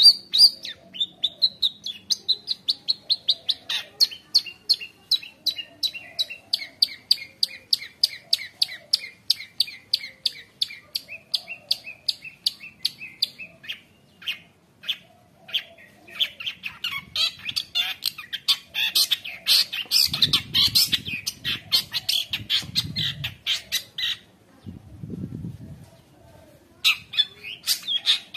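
Long-tailed shrike (cendet) in full song: a long run of quick repeated notes, about four a second, that slowly drift lower in pitch, then a burst of dense, varied chattering with a few low thuds. Near the end it pauses for a few seconds, then starts singing again.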